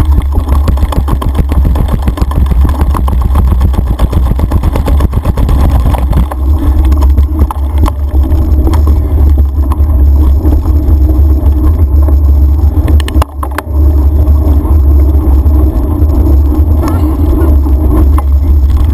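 A mountain bike rattling and clattering over stone paving, gravel and dirt trail, under a heavy, steady wind rumble on the camera's microphone. The rumble dips briefly about thirteen seconds in.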